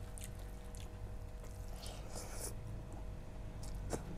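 Soft wet squishing of rice and curry being mixed by hand on a steel plate, with faint eating sounds and a few small clicks.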